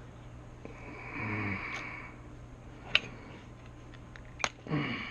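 A man's breathy grunt, then two sharp clicks from small parts being handled, and a second sigh or grunt falling in pitch near the end.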